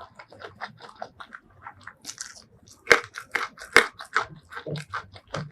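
Close-miked eating sounds: chewing and crunching of fried food, a quick run of crisp crackles with the two loudest crunches about three and four seconds in.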